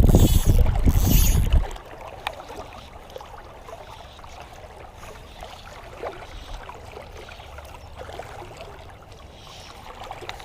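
A loud rumble on the microphone for the first second and a half or so, then the faint steady rush of creek water with a few small ticks.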